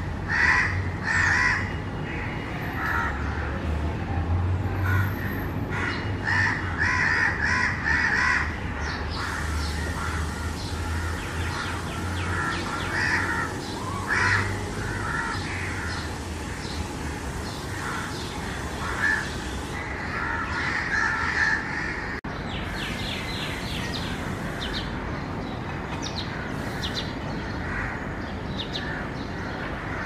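Crows cawing over and over among other birds' shorter calls and chirps, with a low background hum through roughly the first half.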